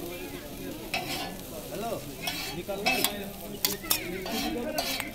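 Chow mein noodles frying on a large flat griddle, tossed and stirred with two metal spatulas. The sizzling runs on under repeated sharp clanks and scrapes of the spatulas on the griddle, several of them between about three and five seconds in.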